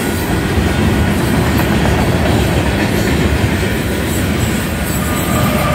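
Freight cars of a Union Pacific manifest train rolling past over the crossing: a steady rumble and clatter of wheels on rail. A steady high tone comes in near the end.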